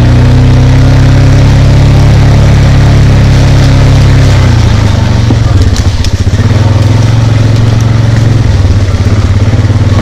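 Small vehicle engine running close by while driving, steady at first. About halfway through it eases off to an uneven, chugging run, then picks up to a steady run again near the end.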